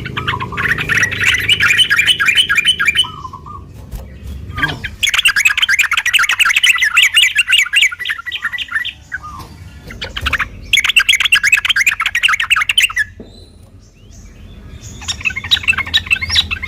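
Yellow-vented bulbul (trucukan) singing in long, fast chattering phrases. There are four bursts of rapidly repeated notes with short pauses between them.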